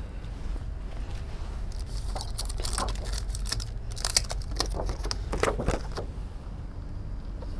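Paper picture cards rustling and tapping against a whiteboard as they are handled and put up: a run of rustles and clicks through the middle, sharpest about four seconds in, over a low steady hum.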